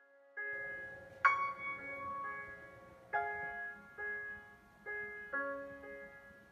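Slow background piano music: single notes and chords struck about a second apart and left to ring and fade, the loudest about a second in.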